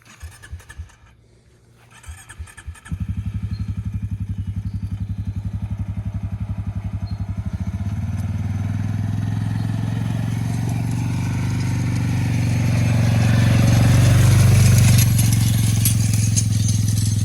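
Four-wheeler (ATV) engine being started: a few short knocks, then it catches about three seconds in and runs with an even pulse. It then grows louder as the ATV gets going, loudest near the end before easing off slightly.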